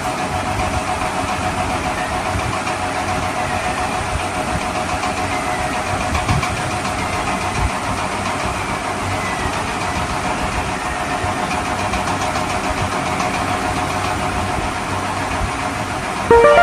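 Steady engine-like running noise with a faint hum, holding an even level throughout.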